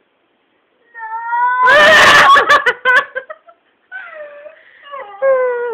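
Long, drawn-out wailing cries. The first is held steady and gets loud enough to distort about two seconds in. A second wail near the end drops in pitch.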